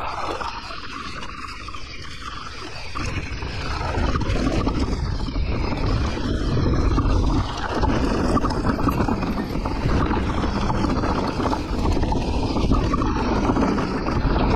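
Wind rushing over the camera microphone with the rumble and rattle of a Santa Cruz Nomad mountain bike's tyres over a rough trail. The noise gets louder about four seconds in.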